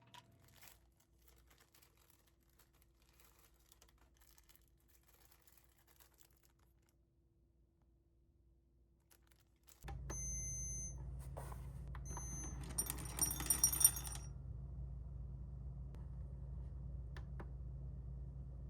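Very quiet room tone. About ten seconds in, a steady low hum starts suddenly, and over the next four seconds come a few short high electronic beeps and a brief cluster of high chiming tones.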